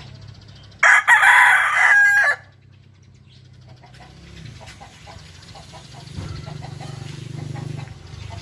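A gamefowl rooster crows once, a loud call of about a second and a half that starts suddenly about a second in.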